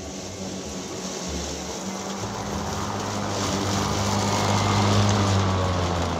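Kobalt 80-volt brushless electric lawn mower running with its blades spinning: a steady whirring rush over a low hum that grows louder, then drops off at the very end as the blade motor is shut off.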